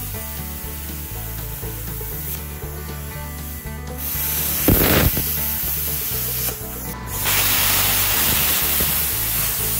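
BestArc BTC500DP plasma cutter torch hissing as it cuts through heavy-duty steel channel at 30 amps and 40 PSI, the hiss growing louder about four seconds in and briefly dropping out about two-thirds of the way through. Background music with a steady bass line runs underneath.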